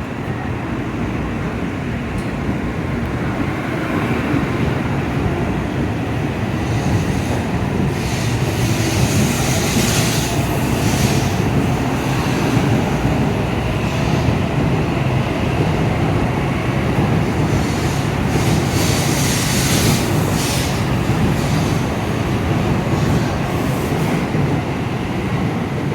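N700-series Shinkansen train running along the platform as it pulls out of the station: a steady rumble of wheels and motors that grows louder over the first ten seconds, with bursts of hissing and rattling and a trace of wheel squeal through the middle.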